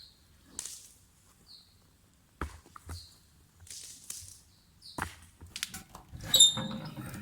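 Scattered clicks, knocks and rustles of something being handled, with the loudest knock about six and a half seconds in, carrying a brief metallic ring.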